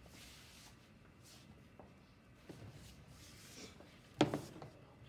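Faint shuffling and footsteps on a hard floor, then a single sharp knock with a brief ring about four seconds in.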